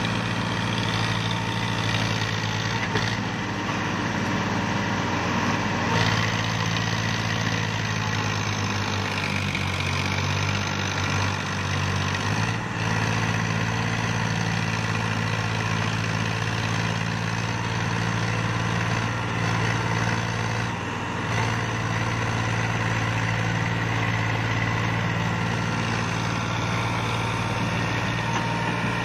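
Diesel engines of two tractors, a Sonalika and a Powertrac, running steadily under load as one tows the other, stuck with a loaded trailer, through soft ploughed ground. The engine note changes about twelve seconds in.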